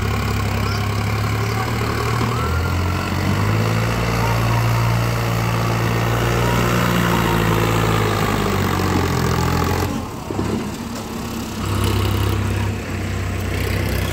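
A tractor's diesel engine works hard at high revs, hauling a heavily loaded trolley up a slope. The engine note rises a couple of seconds in and holds, drops away about ten seconds in, then picks up again near the end.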